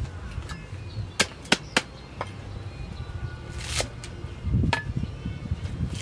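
Green vegetable stems snapped by hand in a few sharp cracks, then a cleaver chopping through a bundle of stems on a wooden chopping board in dull knocks about four and a half seconds in.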